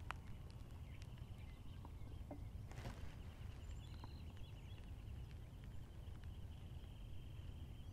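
Quiet outdoor ambience at a shooting bench: a low steady rumble with a faint, high, rippling trill from an insect or bird that runs through most of the stretch, and a soft click at the start and another about three seconds in.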